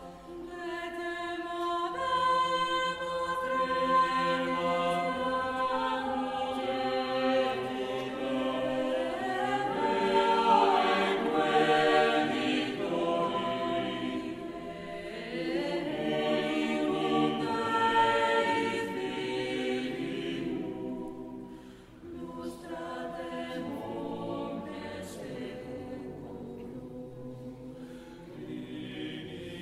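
Chamber choir singing sacred music in slow, sustained chords, with a brief break between phrases about three-quarters of the way through.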